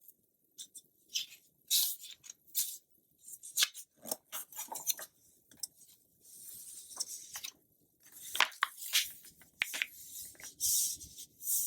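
Magazine pages being handled and turned: a run of crisp paper rustles and crinkles, with longer sliding swishes of paper about six seconds in and again near the end.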